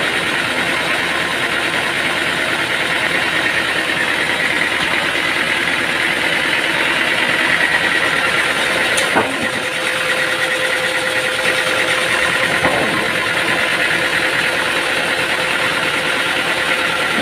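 Machinery running steadily, a dense continuous mechanical drone with a steady whine, and a short sharp click about nine seconds in.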